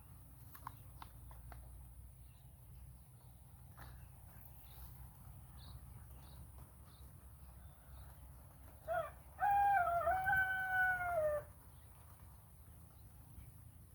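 A rooster crowing once, about nine seconds in: a short first note, then a long held call of about two seconds that drops in pitch at the end.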